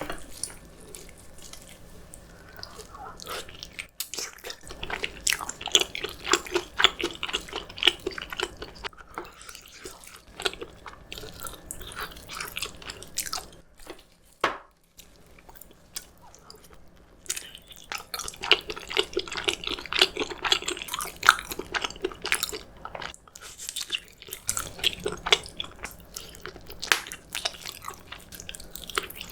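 Close-miked eating: wet chewing and biting of food with some crunchy bites, in irregular runs broken by short pauses.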